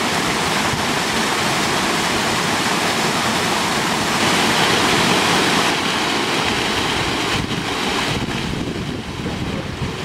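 Loud, steady rush of fast-running water, like a waterfall or tumbling stream.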